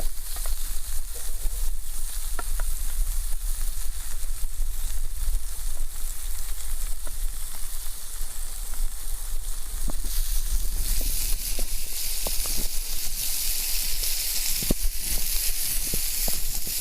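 Food sizzling as it fries in a small thin-walled frying pan, a steady hiss with scattered small pops and crackles. The sizzle gets brighter and louder about eleven seconds in.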